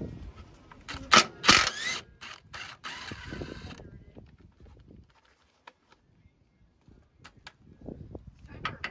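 Hand tools working on the bolts of a steering stabilizer bracket: a cluster of sharp clicks and clatter in the first four seconds, then mostly quiet with a few faint clicks near the end.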